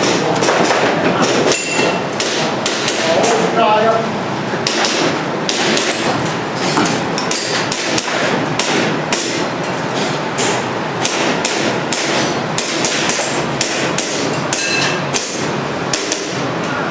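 Airsoft pistol shots in quick irregular strings, sharp clacks a few per second, with voices chattering behind them.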